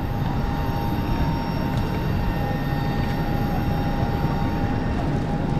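Jet airliner turbine running steadily on the apron: a low rumble with a thin, steady high whine over it.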